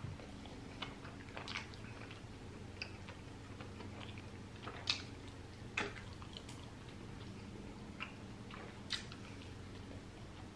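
Close-up chewing of a chili dog in a soft bun: quiet wet mouth smacks and small clicks, a couple of louder smacks about five and six seconds in.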